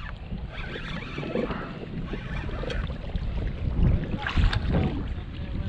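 Wind buffeting the microphone over water lapping against a kayak hull, with a couple of louder knocks or splashes about four seconds in.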